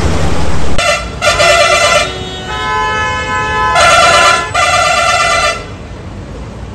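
Vehicle horns honking in road traffic: one horn sounds two honks, a second horn holds a softer note for about a second and a half, then the first horn honks twice more. A low engine rumble comes before the first honk.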